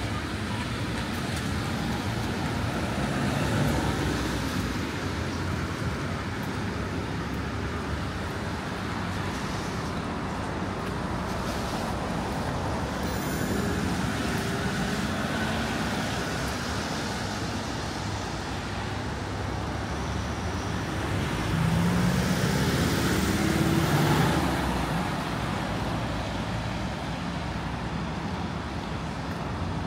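Road traffic on a rain-wet city street: a steady hiss of tyres and engines, with vehicles swelling louder as they pass. The loudest pass comes about three-quarters of the way through, with a low engine note.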